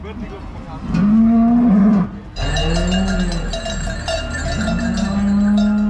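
Cows mooing in long, low calls, about three of them, with cowbells starting to ring steadily a little over two seconds in.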